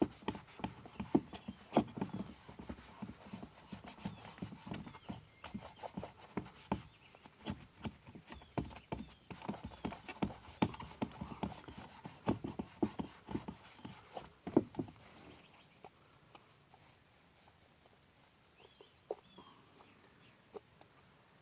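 Irregular knocks, clicks and rubbing as a plastic ATV display module is handled and wiped clean with a rag. The sounds die away about two-thirds of the way through, leaving a few faint high chirps near the end.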